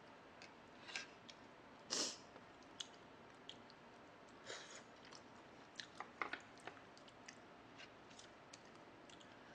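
A person eating gamjatang (Korean pork-bone and potato stew) with chopsticks: soft chewing and wet mouth sounds with scattered short clicks and smacks, the loudest about two seconds in.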